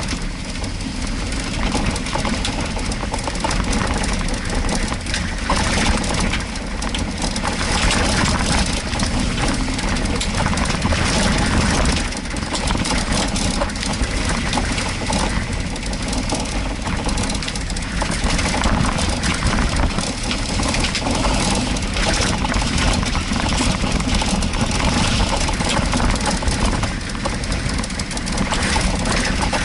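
Jeep Wrangler engine running steadily at low speed as it drives a muddy forest track, with the tyres splashing through mud and many irregular knocks and rattles over the rough ground.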